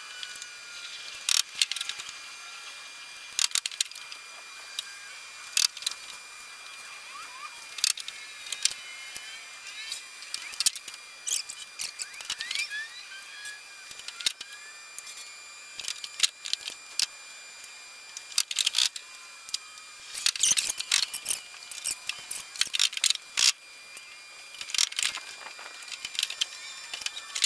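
1 1/4-inch PVC pipe and tee fittings knocking and clicking as they are handled and pushed together while the rack's joints are glued. Scattered sharp clicks, thickest about three-quarters of the way in.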